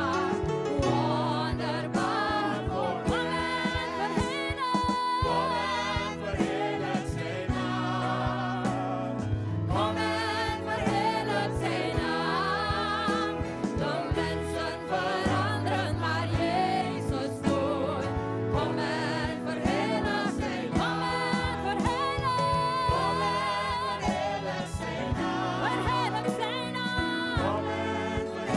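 Live gospel praise-and-worship song: several singers on microphones singing together over band accompaniment, with a steady bass line throughout.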